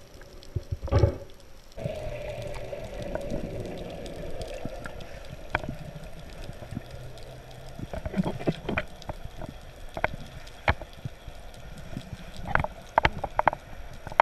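Underwater sound picked up by a diving camera: gurgling and bubbling with many short sharp clicks, over a steady low hum that starts about two seconds in. A loud thump comes about a second in.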